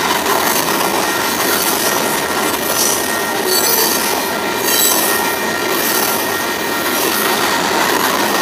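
Freight train of open-top coal cars rolling past close by: a steady, loud rumble and rattle of steel wheels on rail, with a faint, steady high wheel squeal running through it.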